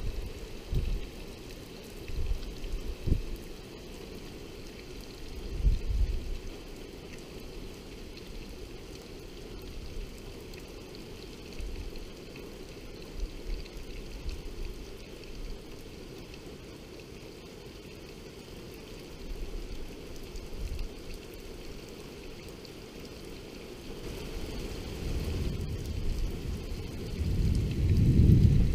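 Heavy thunderstorm rain falling steadily. Short low rumbles come in the first few seconds, and a longer, louder low rumble swells near the end.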